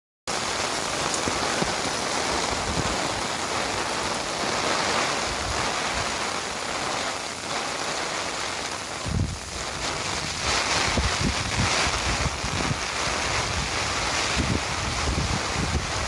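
Steady rain hissing, with gusts of wind buffeting the microphone from about nine seconds in.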